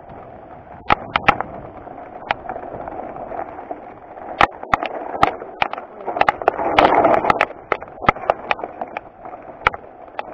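Mountain bike rolling down rocky singletrack: many sharp knocks and rattles from the bike going over rocks, over a steady rush of tyre and wind noise, which grows louder for about a second around two-thirds of the way through.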